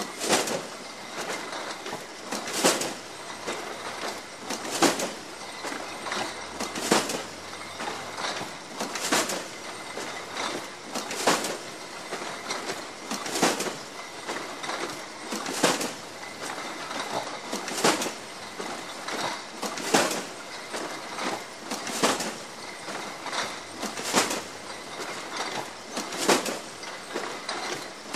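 Bottle-factory machinery handling loaded bottles: a sharp clattering crash about every two seconds, with lighter rattling and clinking in between.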